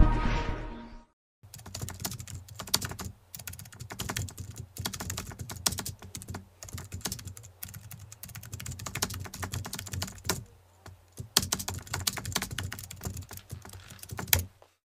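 Typing sound effect: rapid, irregular keyboard clicks in runs broken by short pauses, stopping abruptly near the end. It goes with on-screen text being typed out. The tail of intro music fades out in the first second.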